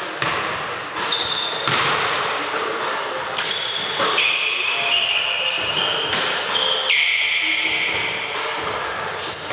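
Basketball bouncing on a hardwood court, with several sharp impacts. High, short squeaks of sneakers on the wooden floor come in a cluster from about three and a half to seven seconds in.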